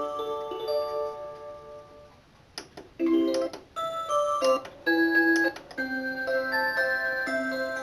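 Electronic alarm-clock melody chip playing a Christmas tune in chiming notes with chords. The tune fades out about two seconds in, a few sharp clicks follow, and a new melody starts about three seconds in.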